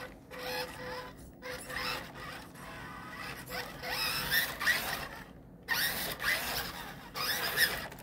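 The brushed 260 electric motor and plastic gear train of an MN78 1/12-scale RC Cherokee crawler whining in about five short bursts as the throttle is blipped, the pitch rising within each burst.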